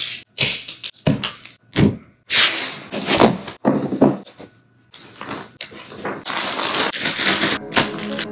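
A cardboard jigsaw-puzzle box and its contents handled: short knocks and rustles of paper and plastic, ending in a longer rustle a couple of seconds long near the end.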